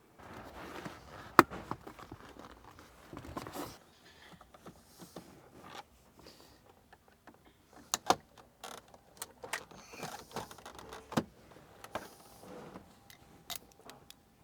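Interior trim of a car's center console being handled and pulled loose by hand: scattered sharp plastic clicks and knocks with rustling in between, the loudest click about a second and a half in.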